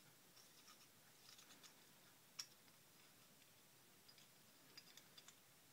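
Near silence with faint scattered clicks from the metal head of an Energizer flashlight being twisted loose by hand, with one sharper click about two and a half seconds in and a few more near the end.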